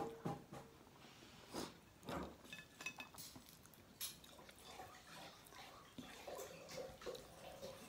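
Quiet eating by hand: fingers picking apart fried mackerel scad (galunggong) and rice on a ceramic plate, with scattered light clicks and clinks against the plate and chewing.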